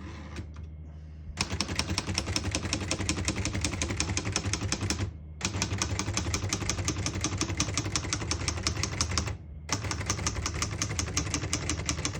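Rapid typing on a 1956 Hermes Baby portable typewriter: fast runs of sharp key strikes, in three bursts with brief pauses between them.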